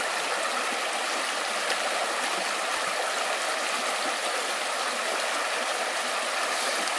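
A river running steadily: a constant, even rush of flowing water.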